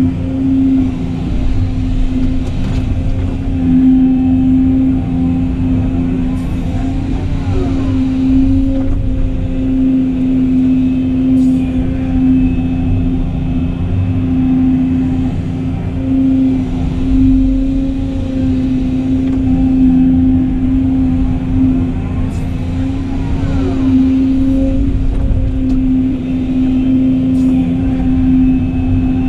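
Volvo excavator running steadily under load, heard from inside its cab while digging sand and swinging loads to a dump truck. A constant engine hum, with whines that rise and fall a few times as the boom and bucket move.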